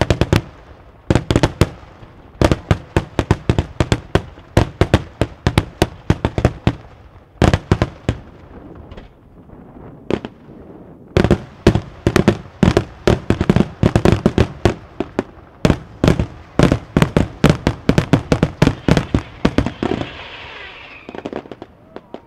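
Daytime fireworks: aerial shells bursting overhead in rapid volleys of sharp bangs, several a second, with short gaps between clusters. About 20 seconds in there is a spell of hissing.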